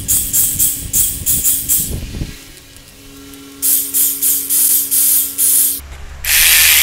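Pneumatic ratchet run in short bursts, each with a hiss of exhaust air, spinning out camshaft cap bolts. There are two strings of quick bursts with a lull between them, then a longer continuous run near the end.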